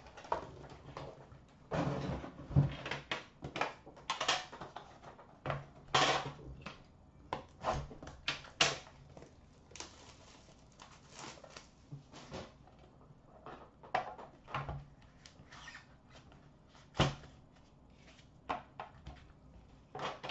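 Upper Deck The Cup hockey card tin being opened by hand: irregular scrapes, rustles and clicks as the metal lid comes off and the inner box is pulled out, with one sharper knock near the end.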